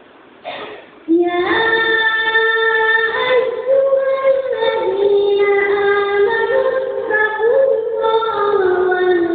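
A high, young voice chanting melodically in long held notes that step up and down in pitch, starting about a second in after a brief noise.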